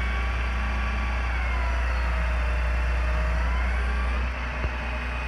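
Rollback tow truck running its hydraulics to tilt the loaded flatbed back level: a steady engine hum under a whine that dips in pitch and climbs again. The whine and part of the hum stop about four seconds in.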